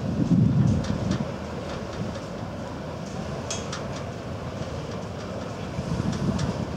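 Steady low rumble of a slowly passing tour boat's Volvo Penta D6 diesel stern drive, mixed with the wash of water along the hull. Wind gusts buffet the microphone in the first second and again near the end.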